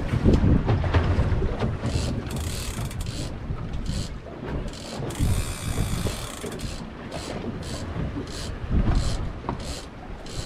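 Fishing reel ratcheting in irregular bursts, two of them running for about a second, over the rumble of wind and sea.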